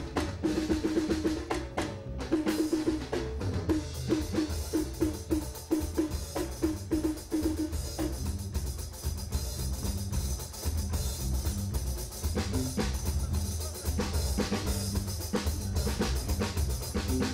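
Live percussion: a hand drum and a drum kit with bass drum, snare and cymbals playing a fast, dense rhythm, over a low bass line. In the first few seconds a drum sounds quick repeated tuned strokes.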